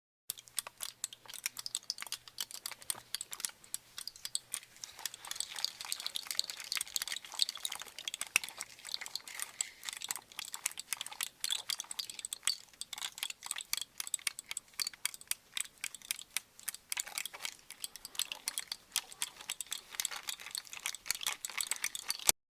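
AI-generated sound effect playing back: a dense, irregular stream of clicks and crackles that starts and cuts off abruptly.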